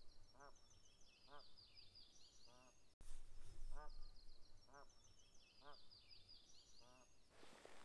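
Faint wild calls over a still lake. A short, low, honking or quacking call repeats about once a second, and a songbird sings high, rapid trilled phrases above it.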